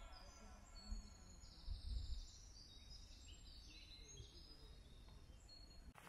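Faint birdsong from several woodland birds, many short overlapping high chirps and trills. A brief low rumble on the microphone about two seconds in.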